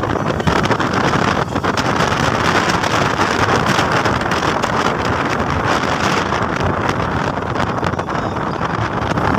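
Wind rushing and buffeting over the microphone from a moving vehicle, with the vehicle's running noise underneath: a steady, loud rush.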